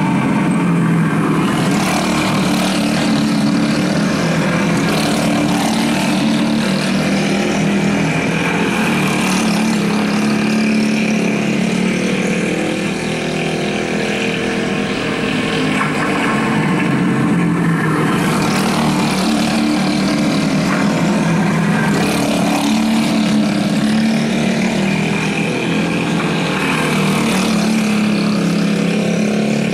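Several go-kart engines running at race speed on a dirt track, a constant layered drone whose pitches rise and fall as the karts accelerate out of the turns and lap past.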